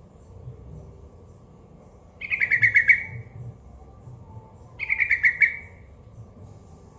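Yellow-vented bulbul (trucukan) singing two short phrases of rapid chattering notes, each about a second long, a few seconds apart.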